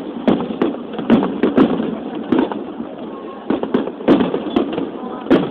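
Aerial fireworks going off in a rapid, irregular string of bangs, about a dozen in the few seconds, each with a short echoing tail.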